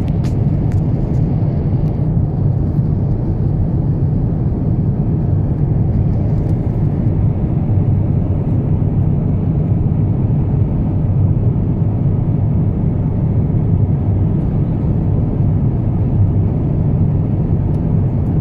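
Cabin noise inside an Airbus A350-900 in flight after take-off: a steady, deep roar of the engines and airflow heard from a window seat. A couple of faint clicks sound in the first second.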